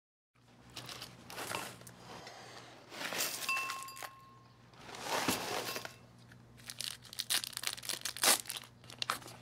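Paper rustling and crinkling in a series of irregular bursts over a faint, steady low hum.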